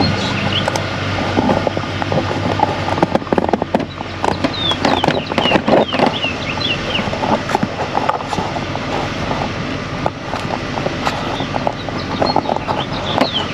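Chevrolet Silverado K1500 pickup's 5.3 V8 running on its replaced fuel pump, with many sharp knocks and rattles over a steady hum, and a few short high chirps in the middle.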